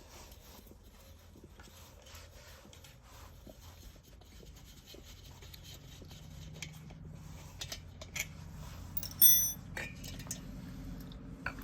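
Chinese diesel heater's fan spinning with a low hum and light scraping ticks: the fan is rubbing on a 10 mm screw that sticks into its housing. The hum grows louder about halfway through, and a brief, louder sharp scrape rings out about nine seconds in.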